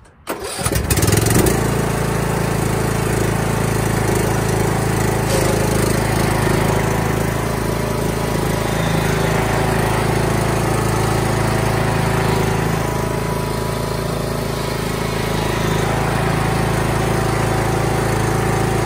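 Husqvarna YTH 2042 riding lawn mower engine running steadily. It comes up to speed about a second in and then holds an even pitch.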